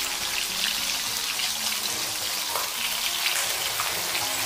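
A whole bream frying in hot oil in an iron wok: a steady sizzle with fine crackling spatter.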